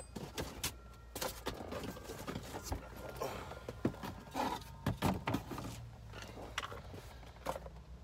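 Irregular clicks, knocks and rustles of objects and packaging being rummaged through and handled.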